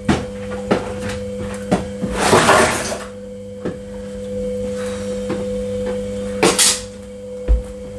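Meltwater from a defrosting freezer being poured out in two short splashes, with scattered knocks of containers being handled over a steady hum.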